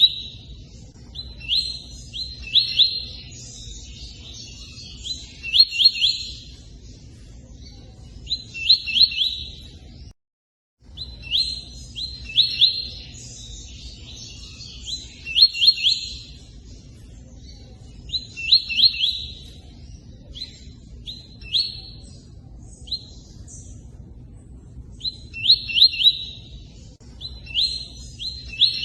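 Tui-tui bird singing its 'cortando' song: short phrases of three or four quick, sharp notes with twittering, repeated every couple of seconds with brief pauses, over a steady low rush of running water. The sound cuts out completely for a moment about ten seconds in.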